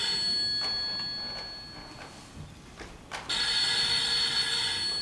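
Old-style telephone bell ringing: one ring stops about half a second in, and after a pause a second long ring starts about three seconds in.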